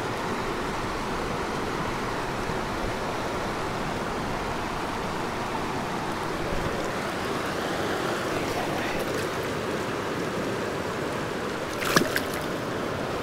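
Steady rushing of stream water flowing past a kayak. About twelve seconds in comes one short, sharp sound as the bass is put back into the water.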